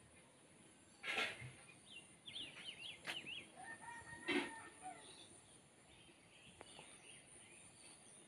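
Chickens calling in short loud bursts, about a second in and again a little past the middle, with small birds chirping quickly in between.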